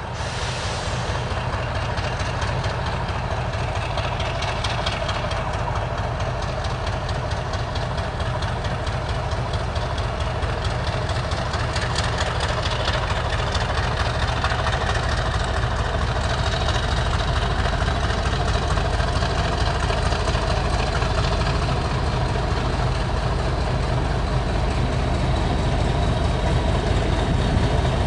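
British Rail Class 50 diesel locomotive's English Electric 16-cylinder engine running steadily, slowly growing louder as the locomotive draws closer.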